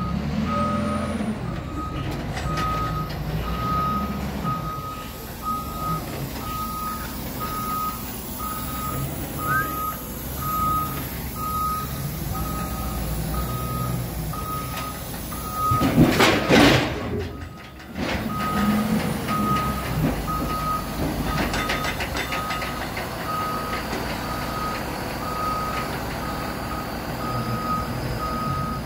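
Caterpillar 966M wheel loader's reverse alarm beeping steadily as it backs off a lowboy trailer, over its diesel engine running. About two thirds of the way through, the beeping pauses under a loud burst of hiss lasting about a second and a half, then resumes.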